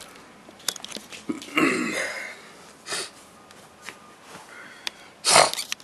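A person's breath and throat noises close to the microphone: a drawn-out breathy sound about a second and a half in, and a short, sharp burst of breath near the end, which is the loudest thing heard. A few light clicks fall between them.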